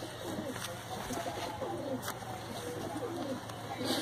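Several domestic pigeons cooing, their low rising and falling calls overlapping, with a couple of short clicks.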